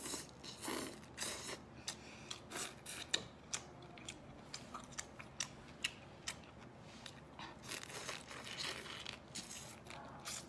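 Whole shell-on shrimp crunched and chewed close to the microphone, shell and all: a run of irregular sharp crunches.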